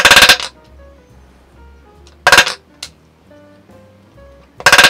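Small hammer tapping on metal in three quick runs of rapid strikes: at the start, a little past two seconds in, and near the end. Music plays underneath.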